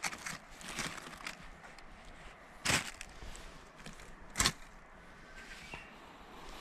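Two sharp knocks or cracks about a second and a half apart, among lighter clicks and rustling.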